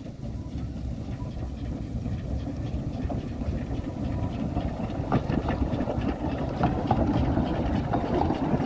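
Narrow-gauge steam locomotive and its carriages running slowly past: a low rumble that grows louder as the train comes closer, with sharp clicks and clanks of wheels and running gear on the track from about three seconds in.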